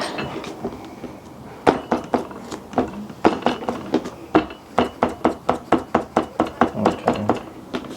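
Slime being worked and mixed: a run of sharp, irregular clicks and taps, a few a second, with a short lull about a second in.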